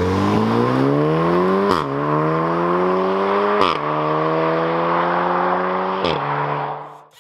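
VW Golf R Mk7.5's 2.0-litre turbocharged four-cylinder accelerating hard through the gears, its exhaust freshly opened up by a resonator delete. The note climbs and drops sharply at three quick DSG upshifts, each marked by a short crack, then fades away near the end.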